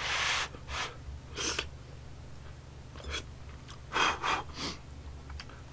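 A man blowing on hot ramen noodles held up on chopsticks to cool them. It starts with a longer puff of breath, then comes a few short puffs, and near the end three puffs in quick succession.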